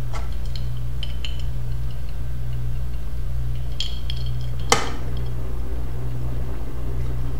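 Computer and hard drives running during a disk benchmark, with a steady low hum. Scattered light ticks in the first second or so and again around four seconds in fit the drive heads seeking. A single sharper click comes just before five seconds.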